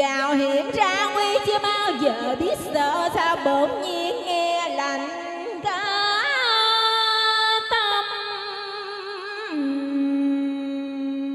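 Woman singing a cải lương (Vietnamese reformed opera) melody into a microphone over instrumental backing, the notes wavering with vibrato and sliding between pitches. Near the end the melody settles into one long held note.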